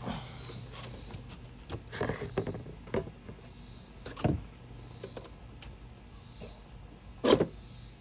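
Scattered knocks and rattles of a Coleman campfire popcorn popper being handled off the fire, with one loud sharp clack near the end.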